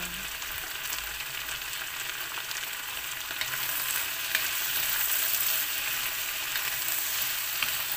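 Chopped chayote, carrot and pork sizzling in a hot wok, stirred with a wooden spatula, with a few light taps against the pan. The sizzle grows louder about halfway through as the vegetables are turned.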